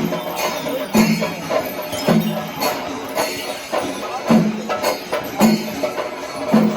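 Rhythmic percussion music: a deep, pitched beat about once a second, with jingling metal percussion over it.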